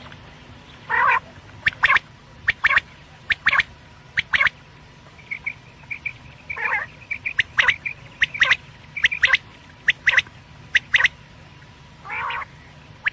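Quail calling: short sharp notes repeated in quick pairs, with a few longer, harsher calls about a second in, near the middle and near the end, and soft chirps in between.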